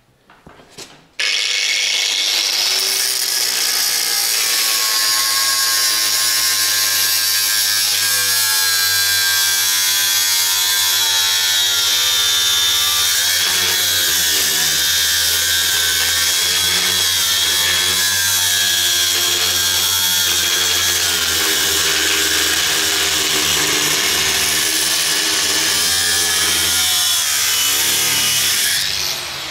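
Angle grinder with a cutting disc cutting lengthwise along the bottom of a steel tractor-trailer drawbar. It starts suddenly about a second in and runs steadily under load, its pitch wavering as the disc bites, and stops just before the end.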